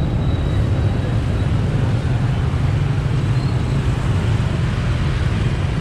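Steady low rumble from riding a motor scooter through city traffic: wind on the microphone mixed with engine and road noise.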